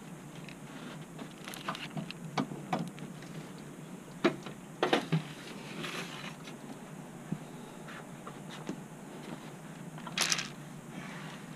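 Scattered knocks, clicks and scrapes as an old car radiator with plastic end tanks is handled and lifted out of the engine bay. A sharper cluster of knocks comes a little past the middle, and a brief louder rustle about ten seconds in.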